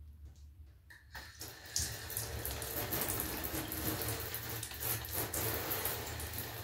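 Handheld shower head spraying water onto a bathtub wall, turned on about a second in and then running steadily. The water flows through a freshly repaired flexible metal shower hose.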